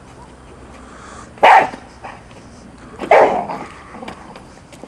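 Giant Schnauzer barking twice, about a second and a half apart, in attack and bite-work training.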